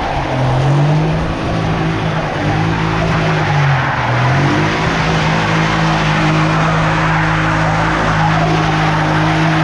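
Car engine held at high revs while the tires squeal and skid through a drift, the engine note dipping and climbing back a couple of times in the first four seconds, then holding steady.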